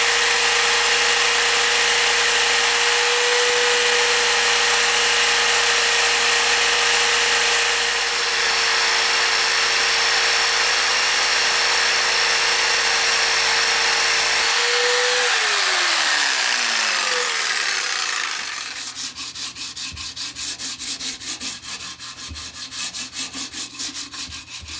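Corded electric jigsaw cutting a pine board, running steadily, then switched off about fifteen seconds in and winding down with a falling whine. For the last few seconds, 80-grit sandpaper rubbing the pine by hand in quick back-and-forth strokes, about two or three a second.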